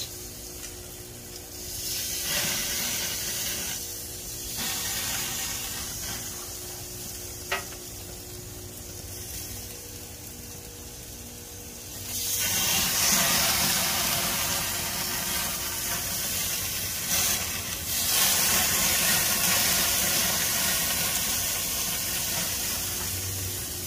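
Steaks sizzling on a gas grill as marinade juice is spooned over them, a steady hiss that grows louder about halfway through. A single sharp click comes about a third of the way in.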